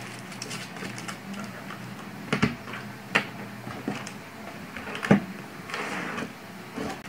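Sheets of paper and a notebook being handled on a desk: soft rustling with several sharp taps and knocks as the stacks are set down and squared, the loudest about five seconds in.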